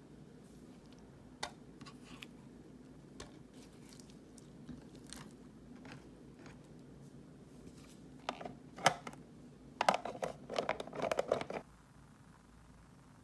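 Plastic food containers and konjac jelly being handled on a wooden cutting board: scattered small clicks and taps, then a busier run of clattering from about eight seconds in that stops shortly before the end. A faint steady low hum sits underneath.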